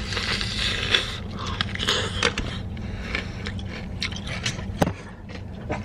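Biting into and chewing a crispy fried chicken thigh close to the microphone: irregular crunching and crackling of the breaded crust, heaviest in the first second and again around two seconds in. A steady low hum runs underneath.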